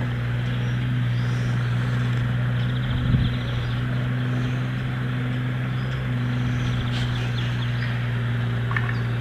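An engine or motor-driven machine runs at a steady speed with a constant low hum. Small birds twitter briefly several times over it, and there is one short low thump about three seconds in.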